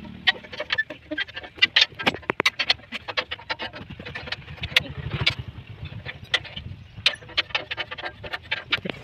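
Steel spanner clinking and scraping against the nuts and bolts of a rusty steel implement frame as they are loosened and tightened, in many sharp, irregular metallic clicks. Under the clicks runs a low, rapid pulsing drone, strongest about halfway through.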